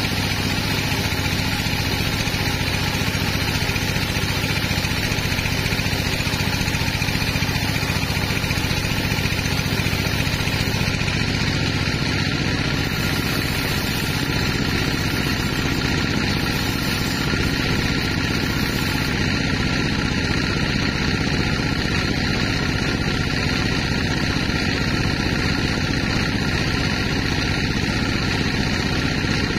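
Large sawmill band saw running steadily, its drive making a constant machine drone with several steady tones while a big log is sawn lengthwise into a slab.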